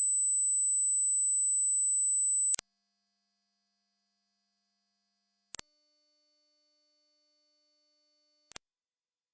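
Hearing-test sine tones: three very high, steady pure tones of about three seconds each, every one higher than the last with a brief break between them. The last and highest is near the top of the human hearing range and cuts off shortly before the end.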